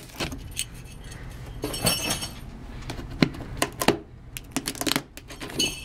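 A small tool breaking the tape seal on a cardboard box: scattered sharp clicks and light clinks, with short scratchy tearing and scraping against the cardboard about two seconds in and again near the end.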